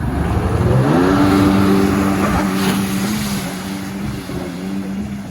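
Sea-Doo jet ski engine revving up, its pitch climbing for about the first second, then holding a steady high speed with small dips in pitch.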